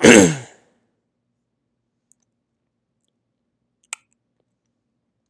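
A short vocal sound falling in pitch right at the start, then quiet except for one sharp click about four seconds in, a laptop click as the pointer goes to the terminal tab.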